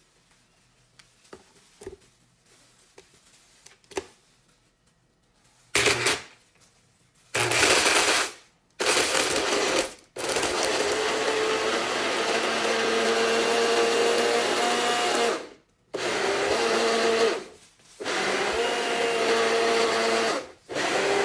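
Small personal bottle blender blending avocado, milk and ice, pulsed by its button. After a few light clicks as the bottle is seated on the base, the motor starts about six seconds in with three short bursts, then runs for about five seconds, then in two shorter runs with brief pauses between, starting again near the end.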